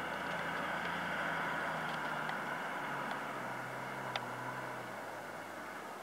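New Holland 8560 tractor's six-cylinder diesel engine running steadily under load as it pulls a reversible plough. The engine note drops slightly about halfway through and grows a little quieter, with a single sharp knock about four seconds in.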